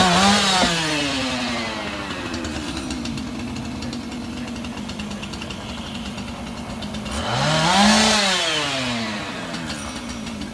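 Chainsaw engine idling. It is revved at the very start, sinks back to idle, and is revved again about seven seconds in before falling back.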